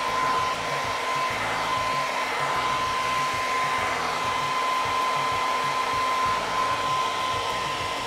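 Philips BHD006 1600-watt hair dryer running with its concentrator nozzle off: a steady rush of blown air with a steady thin whine.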